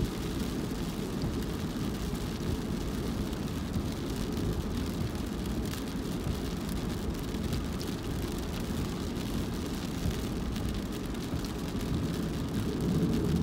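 Steady low rumble of a car driving: engine and tyre noise, with a few faint, scattered ticks.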